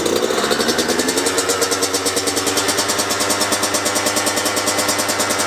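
Kawasaki KX100's small single-cylinder two-stroke engine running just after starting, its revs dropping over the first second or so and then settling to a steady, pulsing idle as it is warmed up from cold.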